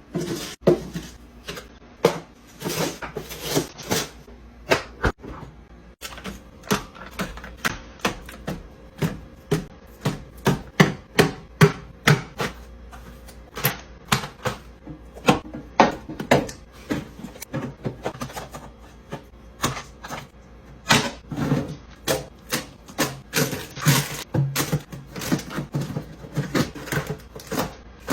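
Many quick taps, knocks and clatters of packaged food and drink containers being handled and set into a mini fridge, coming in rapid runs of several a second.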